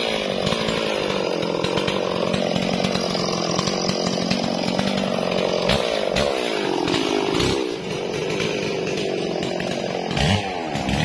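Stihl MS 440 two-stroke chainsaw running under load as it cuts through a log. Its engine pitch wavers as the chain bites, rising and sagging a few seconds before the end.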